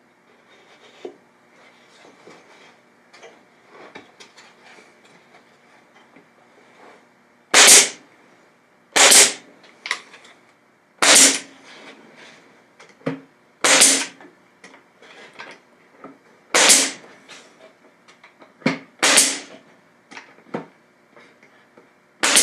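Pneumatic brad nailer driving nails into an MDF jig: about seven sharp shots, one every two or three seconds, starting about eight seconds in. Before them come a few faint knocks as the wooden parts are handled and set in place.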